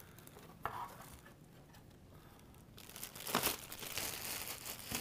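Thin clear plastic packaging bag crinkling as it is pulled off a floodlight, with a light knock about half a second in; the crinkling is loudest from about three seconds in.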